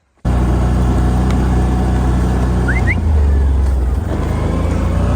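Motor vehicle engine running steadily, cutting in suddenly about a quarter second in, its low hum shifting slightly about three seconds in. A short two-note rising chirp is heard briefly near the middle.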